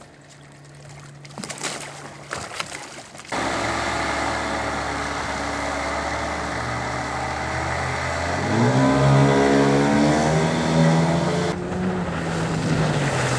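A few knocks, then an engine starts in abruptly and runs steadily, rising in pitch about eight seconds in as it speeds up.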